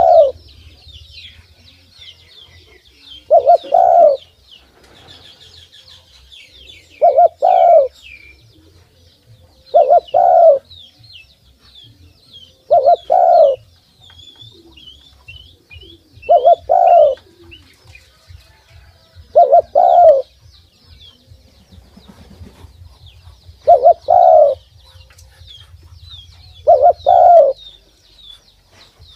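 A spotted dove cooing: a short double-note coo, repeated about every three seconds. Faint high chirping of small birds runs underneath.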